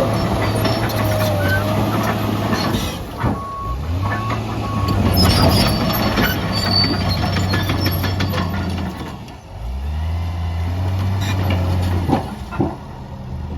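Case 2050M bulldozer's diesel engine running under work, its note dipping and changing pitch a few times, with metal clanks from the machine and a few short beeps a few seconds in.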